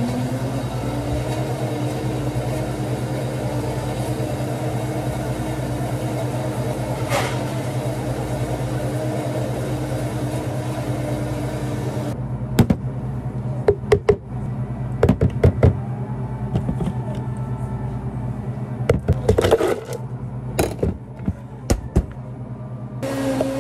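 A motor spins up, rising slightly in pitch over the first second, then runs steadily for about twelve seconds before stopping suddenly. After it stops come scattered knocks and clatter of hard containers being handled.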